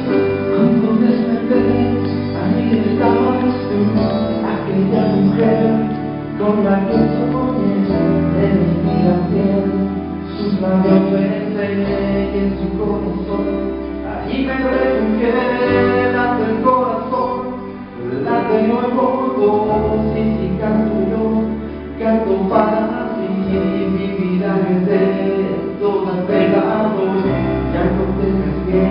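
A live band of guitar, keyboard and drums playing a song with a singer's voice over held bass notes.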